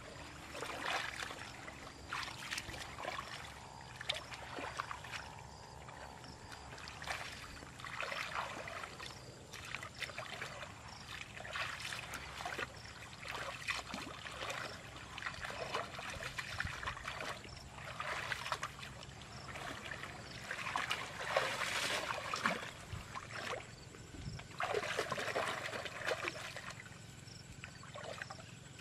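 Shallow muddy water splashing and sloshing in irregular bursts as a person wades and gropes by hand through a mud-bottomed ditch.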